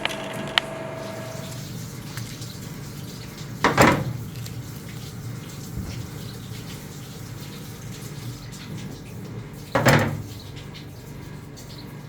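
Water running steadily, as from a tap at a processing station, with two short, louder bursts of noise about six seconds apart.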